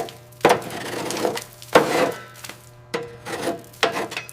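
Hand-tool work on car parts: four separate scraping strokes, each starting sharply and trailing off, over a faint steady hum.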